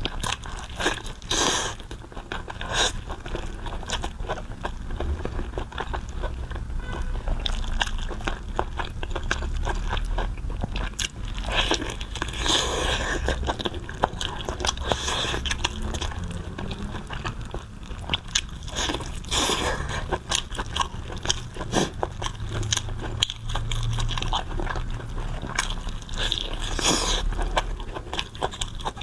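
Close-up sounds of someone biting and chewing pig tongue: wet mouth clicks and chewing run steadily, with a few louder bites.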